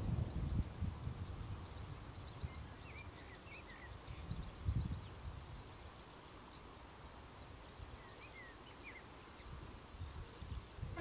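Small birds chirping and trilling, over low gusts of wind buffeting the microphone, strongest at the start and about five seconds in.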